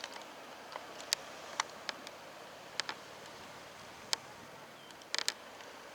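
Irregular sharp clicks and ticks, about ten of them, with a quick cluster of several near the end, over a faint steady hiss.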